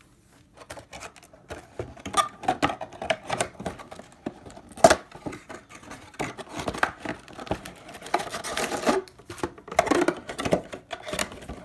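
Packaging of a sealed hockey card box being handled and torn open by hand: a run of rustles, crinkles and small clicks, with one sharp snap about five seconds in.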